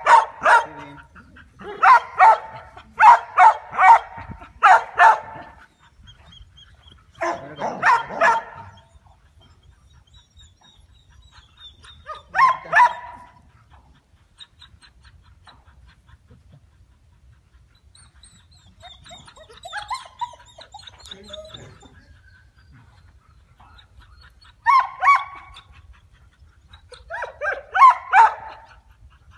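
Young dog barking in short bursts of a few barks each during rough play, several bursts spread out with quiet gaps between, the longest gap in the middle.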